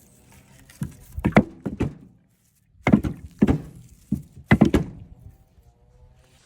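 Heavy thunks in three quick bunches of two to four strikes each, about a second apart.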